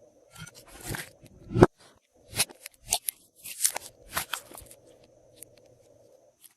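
Glossy slime being squished and kneaded by hand, giving irregular sticky crackles and pops, the loudest about one and a half seconds in.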